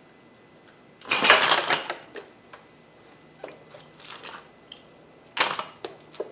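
Metal clanks and rattles of a motorcycle rear paddock stand as the bike is lowered off it and the stand is pulled away. A loud clatter comes about a second in and lasts most of a second. Lighter knocks follow, then a second sharp clank a little after five seconds.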